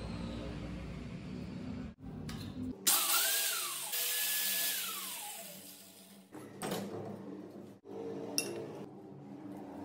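Angle grinder motor whirring in short edited clips: a steady hum at first, then a loud start with a hiss about three seconds in, its whine falling as the motor spins down. The sound breaks off abruptly at each cut.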